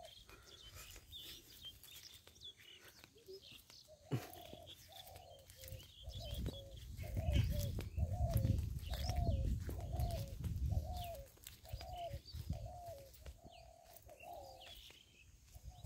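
A bird calling a quick series of short, low, cooing notes, two or three a second, over fainter high chirps of small birds. A low rumble swells in the middle and is the loudest part.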